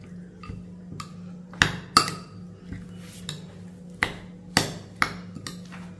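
Steel spoon stirring a salad with curd in a small glass bowl, clinking against the glass in a series of sharp, irregular taps.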